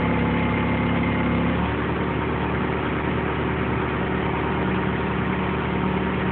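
Propane-fuelled Hyster forklift engine running steadily at low speed; its tone changes about a second and a half in.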